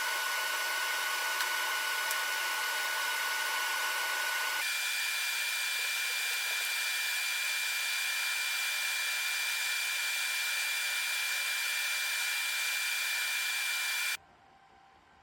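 TIG welding arc on a sheet-metal corner: a steady hiss with a thin high whine, which jumps higher in pitch about four and a half seconds in. The arc cuts off abruptly near the end.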